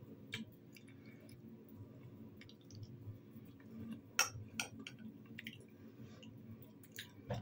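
Quiet eating: a metal fork clicking and scraping against a bowl a few times, the clearest clicks about four seconds in, with faint chewing.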